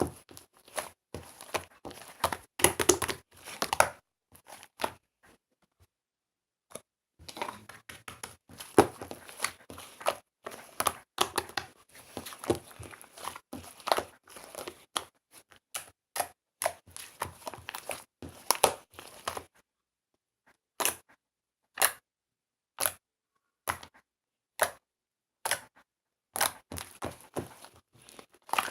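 Slime being squeezed, stretched and pressed by hand, giving runs of close crackling clicks and pops, a short pause, then single pops about once a second near the end.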